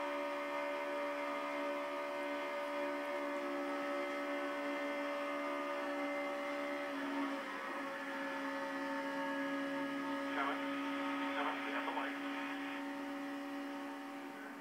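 NASCAR stock car's V8 engine running flat out, picked up by the in-car camera and heard through a television speaker: a steady multi-tone drone whose pitch dips slightly about seven seconds in.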